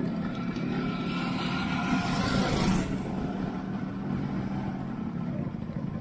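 Two-stroke motorcycle engines running steadily on the road, with a rushing sound that builds about two seconds in and cuts off shortly after.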